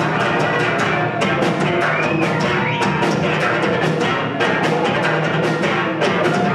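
A live band plays loudly: electric guitar over a fast, steady drum-kit beat. A high wavering slide in pitch comes through about two seconds in.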